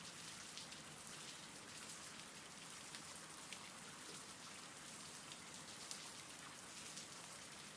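Faint steady rain, with scattered light ticks of individual drops.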